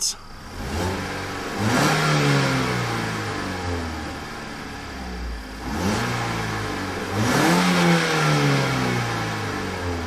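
2012 Mazda3 Skyactiv's 2.0-litre four-cylinder engine revved twice while standing still, heard from inside the cabin. Each rev climbs quickly to a bit over 3,000 rpm, then sinks slowly back toward idle.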